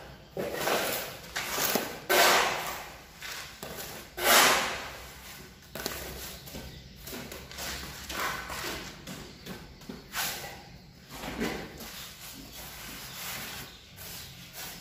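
Steel trowel scraping through and spreading a bed of semi-dry cement mortar on a concrete floor, in a run of irregular scraping strokes, the loudest in the first five seconds.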